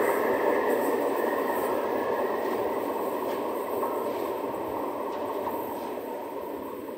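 Freight train of cereal hopper wagons, hauled by three Renfe Class 333 diesel locomotives, running away into a tunnel. Its steady rumble fades gradually.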